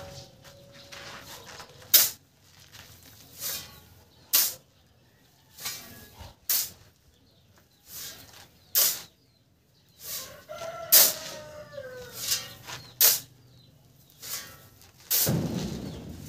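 A shovel scooping and scraping into a pile of sand, in short strokes every second or two. A rooster crows in the background about ten seconds in.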